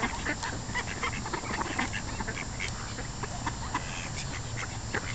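A flock of ducks quacking: many short, overlapping calls in quick succession.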